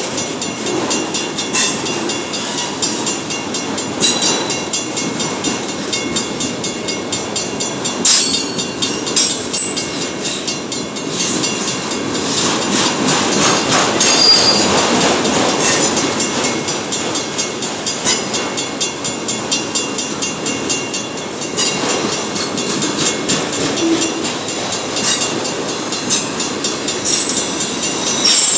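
Autorack freight cars rolling past close by: a steady rumble of steel wheels on rail, with repeated clacks and knocks as the wheels cross rail joints.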